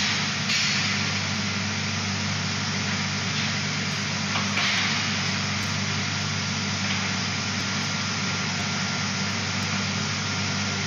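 Shot blasting machine for steel bars and rebar running, with its roller conveyor: a steady, dense rushing noise over a low even hum.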